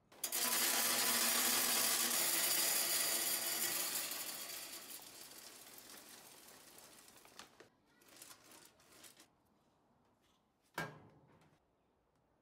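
Hardwood pellets poured from a bag into a pellet grill's metal hopper: a loud rattling pour that tapers off over several seconds. A few scattered clicks follow, then a single sharp knock near the end.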